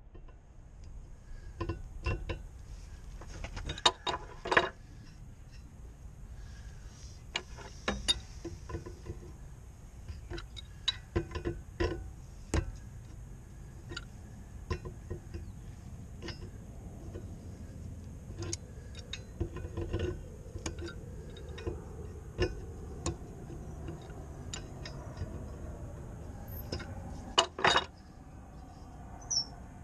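Scattered, irregular metal clicks and clinks of a pipe wrench on a boat propeller's shaft nut as the nut is loosened, with a louder clatter near the end.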